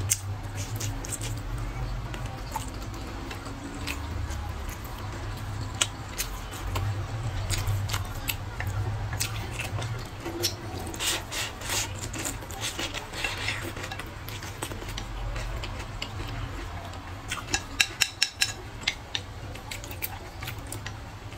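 Close-up eating sounds: chewing braised pork and noodles, with wooden chopsticks clicking against a ceramic bowl. There is a quick run of sharp clicks near the end, over a steady low hum.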